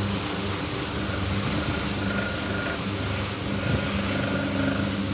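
Emerson 73648 16-inch brass-bladed table fan running: a steady motor hum under the rush of air from the blades, with a faint high whine that comes and goes.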